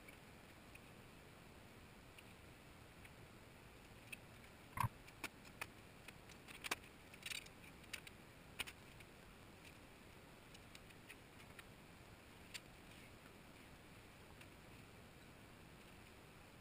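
Light metallic clicks and clanks of clamps and small parts being handled and set down on a metal-topped workbench. They come in a scattered cluster from about four to nine seconds in, with a few fainter ones after, over a faint steady hiss.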